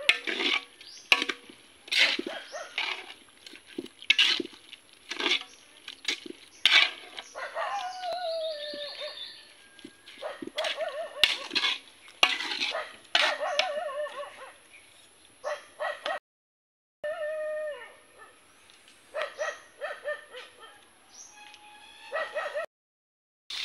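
A dog barking in repeated short, sharp barks, with a few drawn-out whines that fall in pitch between them.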